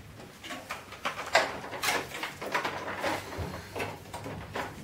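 Irregular clicks and knocks of plastic and metal printer parts being handled while screws are taken out to free a panel.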